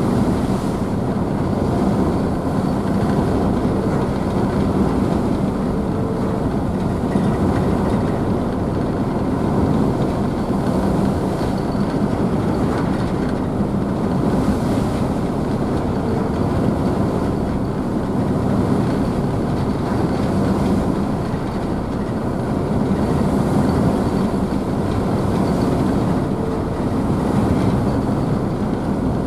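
Car ferry's engines running steadily with the churn of water spray in the wake, heard from the rear deck. It is an even, dense low rumble with a faint steady hum through it.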